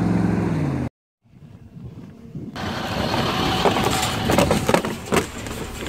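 A passing road vehicle's engine hum, dropping slightly in pitch, cut off suddenly about a second in. After a short silence comes a steady rushing noise with a few sharp knocks.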